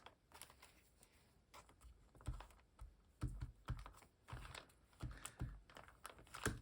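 Glue stick being rubbed over a paper hinge and the paper handled on the table: quiet, irregular light clicks and soft thumps.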